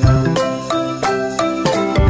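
Background music: a melody of short struck notes over a regular beat.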